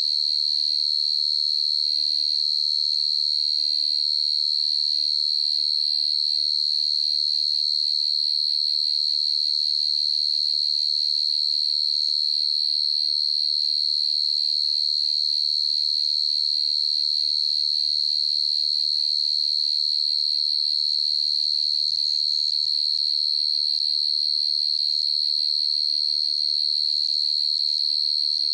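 Cricket singing a steady, unbroken high-pitched trill at an even level.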